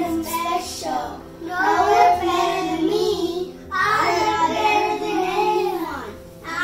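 Young children singing together in short phrases with brief pauses between them.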